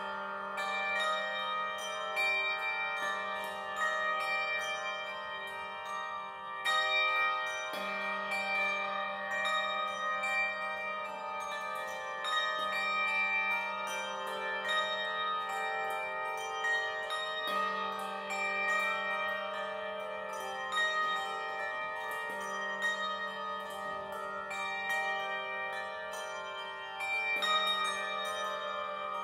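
Handbell choir playing a piece on brass handbells: many bells struck in chords, their notes ringing on and overlapping, with a low bell sounded afresh every few seconds beneath.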